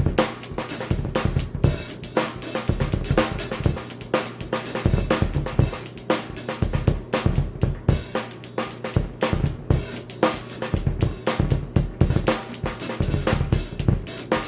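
Drum kit played fast with double bass drums: a dense run of rapid kick drum strokes under snare hits and cymbals.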